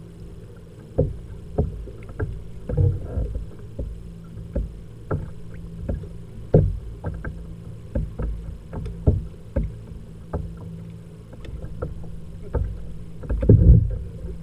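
Small waves slapping and knocking against a plastic kayak hull, irregular thuds about once or twice a second over a steady low rumble of water, with a louder cluster of knocks near the end.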